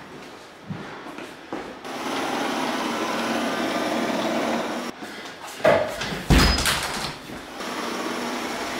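Robot vacuum cleaner running on a hardwood floor, its motor and brushes whirring steadily from about two seconds in. It is broken in the middle by several loud knocks and clunks.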